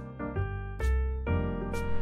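Background piano music with a light, steady beat.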